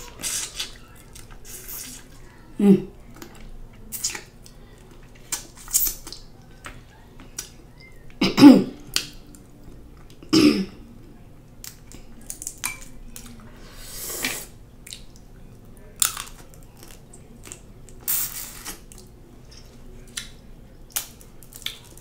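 Chewing on lobster and snow crab meat, with scattered short clicks and a few brief sounds from the throat, the loudest about eight and a half seconds in.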